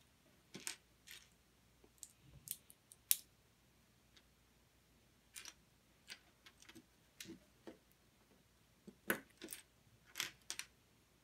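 LEGO bricks being handled and snapped together: irregular sharp plastic clicks and short rattles, with the loudest clicks about three seconds in and again near the end.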